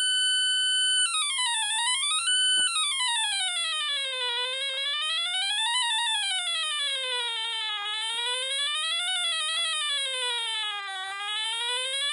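Buzzy electronic square-wave tone from a 555 timer sound generator, its pitch swept by a digital potentiometer. It holds one high note for about a second, then slides down and up again and again, each glide about two seconds long, the turning points drifting lower as the up-down direction is flipped back and forth.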